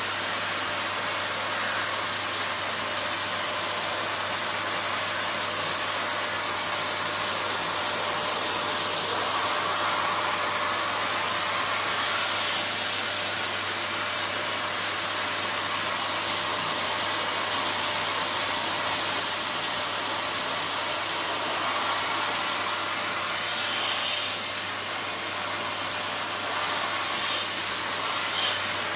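A Gtech CY01 bagged cylinder vacuum cleaner with a 1600-watt motor running steadily, working on carpet. It gives a constant rushing hiss with a faint high whine, swelling and easing slightly as the floor head is moved.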